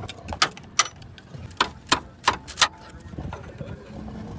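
Metal striking metal: six sharp knocks at uneven spacing over about two and a half seconds, one of them ringing briefly.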